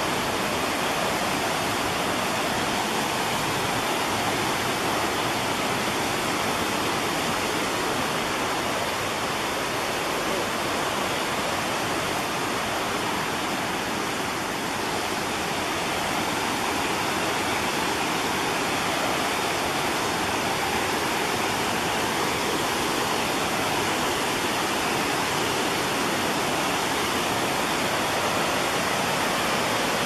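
Creek whitewater cascading over small waterfalls, a steady rush of water.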